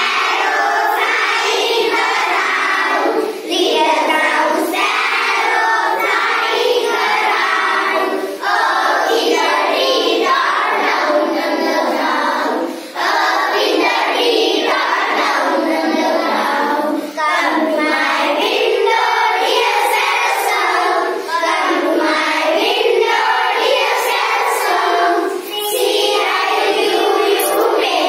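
A class of children singing an English action rhyme together in unison, phrase after phrase, with a short break for breath about every four seconds.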